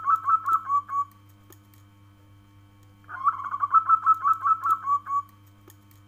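Zebra dove (perkutut) cooing: rapid runs of short staccato coos, each phrase about two seconds long and trailing off on a last lower note. The end of one phrase fills the first second, and a full phrase starts about three seconds in, over a faint steady hum.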